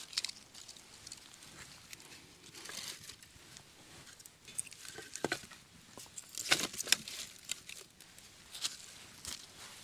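Split kindling sticks and bark being laid onto a small, newly lit fire: scattered wooden knocks and clacks with dry rustling between them, the loudest couple of knocks about two-thirds of the way through.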